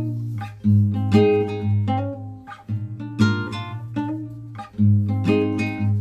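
Acoustic guitar music: strummed chords struck again every second or two, each left ringing.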